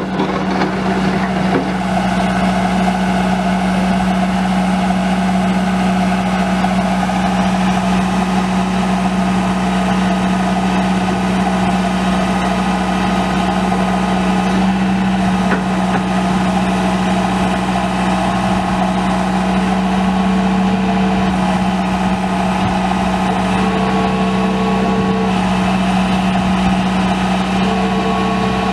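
2000 John Deere 120 excavator's four-cylinder turbo diesel engine running at a steady speed with an even, unchanging hum.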